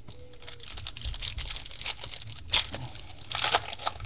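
Trading cards being handled and shuffled, with a dry rustle of cards and crinkling of the pack wrapper. Two louder rustles come about two and a half and three and a half seconds in.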